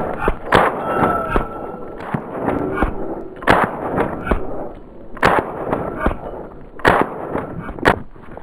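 Sig Sauer 522 semi-automatic .22 LR rifle fired in a slow string of single shots, irregularly spaced about a second or more apart, each a sharp crack with a short echo.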